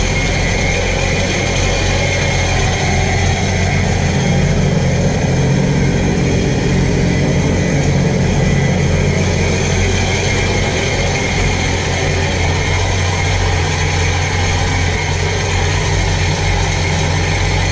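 Sea-Doo RXT's supercharged four-stroke Rotax engine idling steadily while run out of the water on its trailer, with a garden hose supplying its cooling water.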